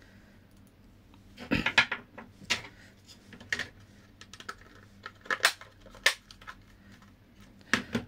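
Plastic casing of a Daikin ductable AC remote clicking and snapping as its two halves are pressed and fitted together: a string of sharp, irregularly spaced clicks, the loudest cluster about a second and a half in.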